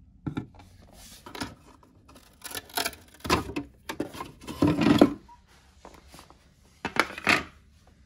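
Parts of a self-cleaning robot vacuum base being handled: irregular clicks, knocks and rubbing, with louder clatters about three, four and a half, and seven seconds in.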